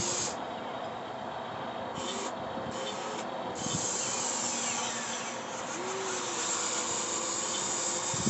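Radio-controlled excavator working a trench: a steady hiss and scraping with faint short whines from its motor. A high hiss drops out briefly a few times in the first few seconds.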